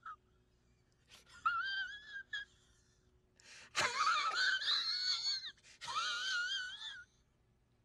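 A person's high-pitched, wavering wheezy whine in three bursts, the longest lasting about two seconds.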